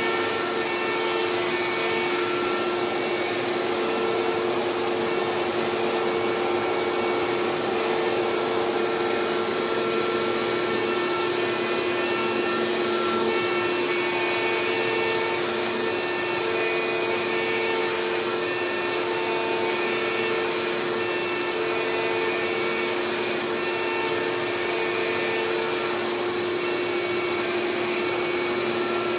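CNC router with a DeWalt router as spindle milling a carbon fiber sheet, with its dust extraction running. A steady whine sits over the steady rush of the vacuum.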